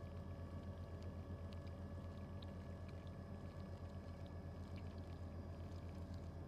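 Mack truck's diesel engine idling, a steady low hum with an even throb, heard inside the cab.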